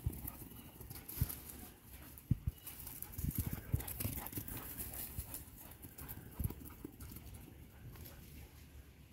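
Dogs' paws thudding on grass as they sprint, in irregular low thuds with a quick cluster of them about three to four seconds in.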